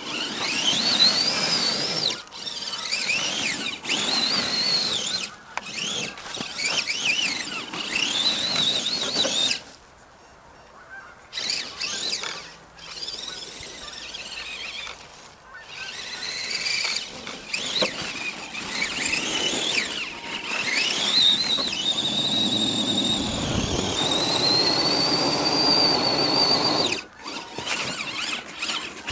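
Radio-controlled truck's motor and gears whining in bursts as it drives and spins its tyres through snow, the pitch rising and falling with the throttle. Near the end comes a longer, steadier whine.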